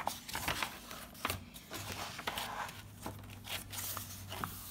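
Paper rustling and scraping as a picture book's pages are handled and turned: a run of short crackles and brushes.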